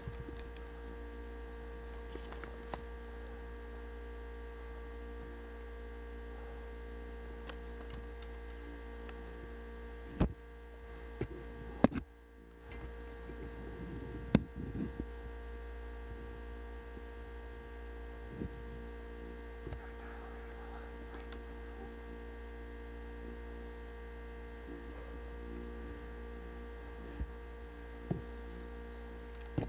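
Steady electrical hum made of several even tones, broken by a few sharp clicks or knocks, clustered about a third of the way in and twice near the end.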